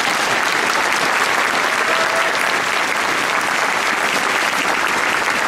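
A large crowd applauding, a dense, steady clapping.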